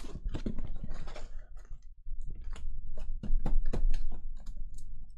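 Foil-wrapped trading-card packs being handled as a stack: crinkling and quick clicks, with a run of separate ticks about three a second in the middle.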